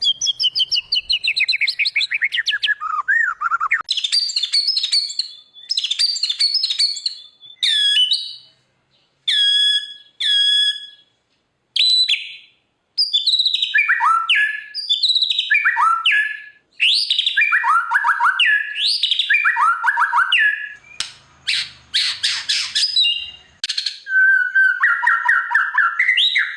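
White-rumped shama (murai batu) in full song: a run of loud, varied whistled phrases, many sliding down in pitch, with short pauses between them.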